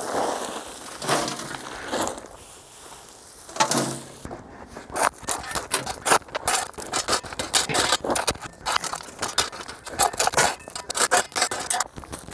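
A dense, irregular run of sharp crackles, clicks and scrapes, starting about four seconds in, after a quieter rustling stretch.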